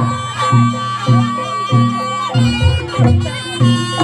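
Jaranan accompaniment music: a shrill reed pipe holds long high notes over a steady low drum beat of about two strokes a second, with a short break in the held note midway.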